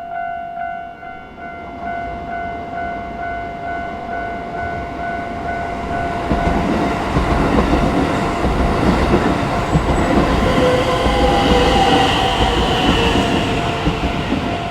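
Japanese level crossing's warning bell ringing rapidly, about twice a second, as a Keisei Chiba Line electric train comes up and runs over the crossing. The rumble of wheels on the rails swells from about two seconds in and is loudest from about six seconds in, with a brief falling whine near the end.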